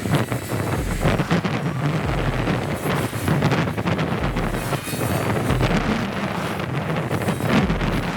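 Heavy machine running steadily, with wind buffeting the microphone.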